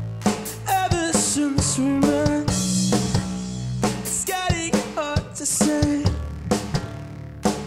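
Live band playing: drum kit beating out a steady rock rhythm over electric bass, with a male voice singing lines that come and go.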